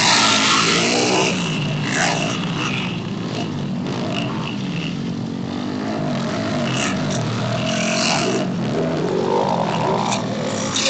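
Small pit-bike engines revving up and easing off again and again, their pitch rising and falling as the bikes ride the dirt track.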